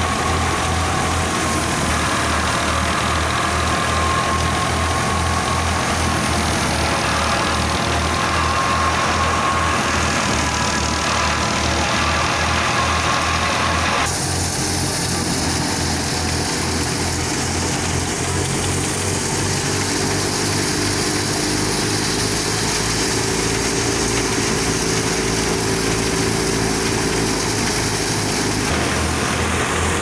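Tractor-powered wheat thresher running steadily while threshing: the tractor engine drives it through a shaft, with an even low pulse under the whir of the drum and belts. The tone of the sound changes abruptly about halfway through and again near the end.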